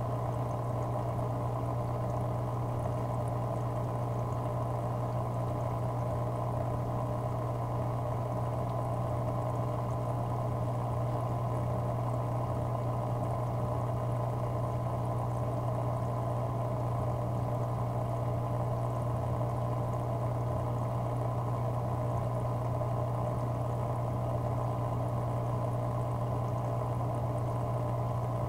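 Aquarium equipment running: a steady low hum with a constant sound of moving, bubbling water, as from a tank's pump and filter.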